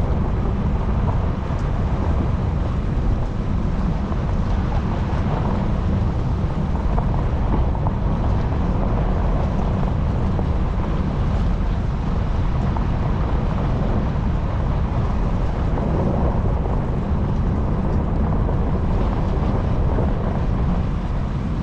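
Steady low rumble of a car driving, with road and wind noise.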